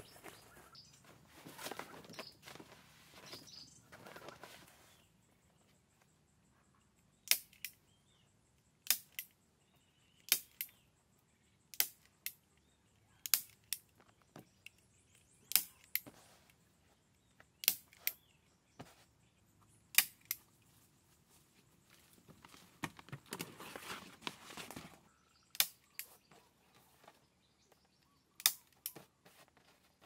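Rustling, then a long series of sharp knocks of a tool striking wood, about one every second or two and often in quick pairs. A stretch of rustling comes before a last run of knocks.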